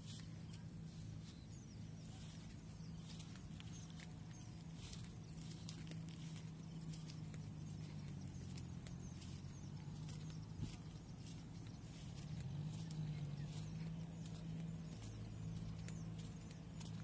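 Footsteps in rubber flip-flops along a dry dirt field path, an irregular run of light slaps and clicks, over a steady low hum.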